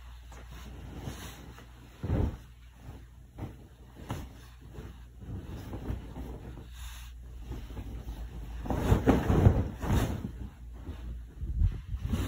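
Pillows and bedding rustling and thumping as they are lifted and tossed onto a bed close to the microphone. There is a sharp thump about two seconds in, and the loudest stretch of rustling comes about nine seconds in.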